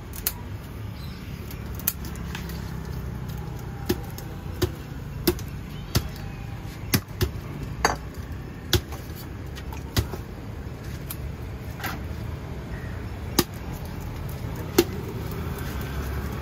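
Big knife chopping through a large catla fish onto a wooden log chopping block: about a dozen sharp, irregularly spaced strikes over a steady low rumble.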